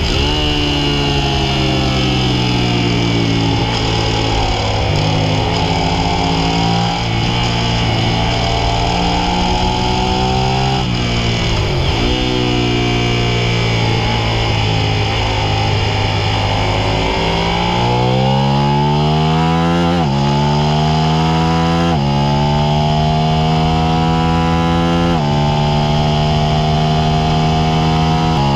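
Suzuki SV650's V-twin engine heard onboard while being ridden hard on track. Near the middle the revs dip sharply and recover. Later they climb and drop suddenly three times, at about 20, 22 and 25 seconds in, as it shifts up through the gears.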